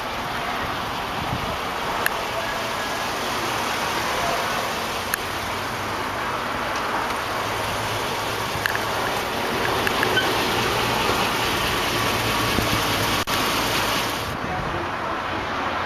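Steady outdoor road-traffic noise from passing vehicles, with a few faint clicks. The sound changes abruptly about 13 seconds in, and the highest frequencies drop away a second later.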